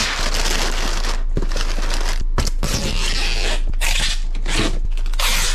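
Brown kraft packing paper being crumpled and pushed into a cardboard box: a dense rustle at first, then several separate crunches with short pauses between them.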